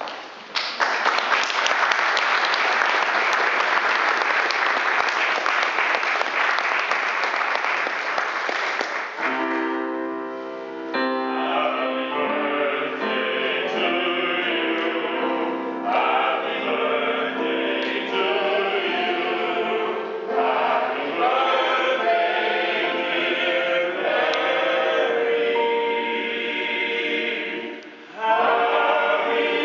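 Audience applause for about nine seconds, then a digital piano plays chords and three men sing together, with a brief break a couple of seconds before the end before the voices come back in.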